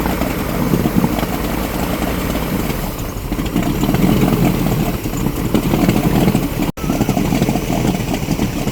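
Boat engine running steadily while under way, with a brief dropout about seven seconds in.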